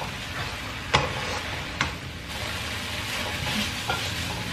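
Spaghetti with beef sizzling in a wok as a wooden spatula stirs and tosses it, frying in little oil until it dries out. Two sharp clicks of the spatula against the pan come about a second in and just before two seconds.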